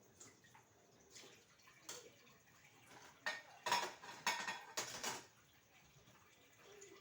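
Plates and cutlery clinking and knocking against each other while dishes are being washed, with a quick run of clatters around the middle.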